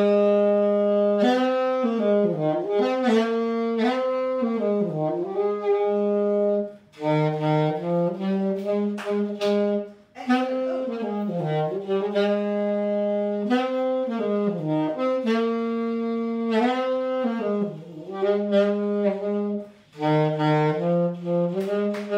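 A saxophone playing a slow solo melody, one held note after another, in phrases broken by short breath pauses.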